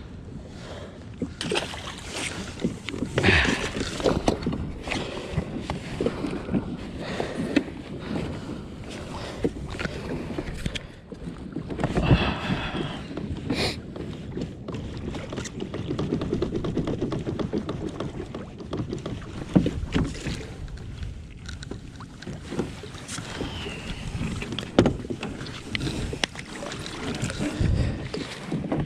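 Water sloshing around a kayak, with scattered knocks and clatter of gear being handled on the hull and a few louder thumps.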